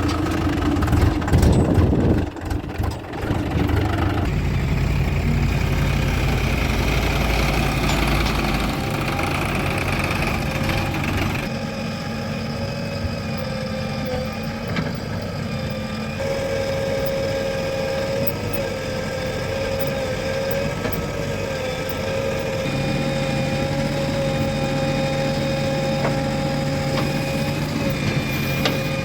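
Diesel engines of a backhoe loader and farm tractors running steadily. The engine note changes abruptly several times.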